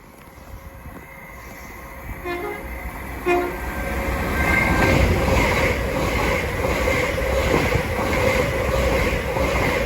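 LNER class 800 Azuma high-speed train sounding two short horn toots, about two and three seconds in. It then passes at speed, with a loud, rising rush of wheel and air noise.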